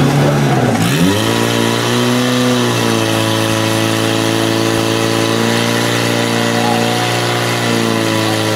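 Portable fire pump engine revved hard. Its pitch dips and swings back up about a second in, then holds high and steady under load while it drives water through the hose lines, sagging slightly near the end.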